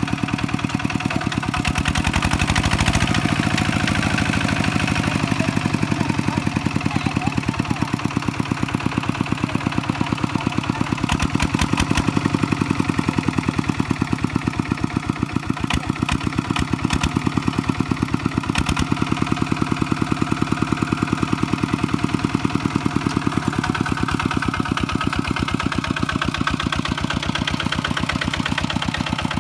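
A Kubota walk-behind two-wheel tractor's single-cylinder diesel engine runs steadily with a rapid, even chugging while its steel cage wheels work a flooded paddy. A few short sharp clanks come in the middle.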